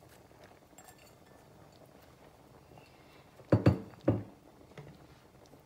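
Two clunks of kitchenware about half a second apart, a little over halfway through.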